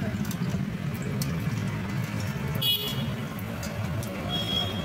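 Steady street traffic rumble with a short car horn toot about three seconds in and another near the end, over the faint crackle of momos deep-frying in hot oil.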